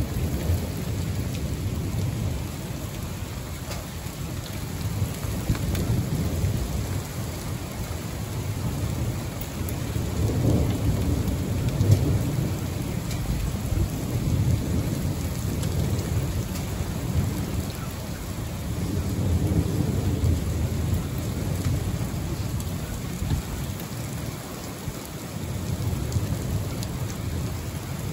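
Heavy rain pouring steadily, with thunder rumbling low and swelling twice, about ten and twenty seconds in.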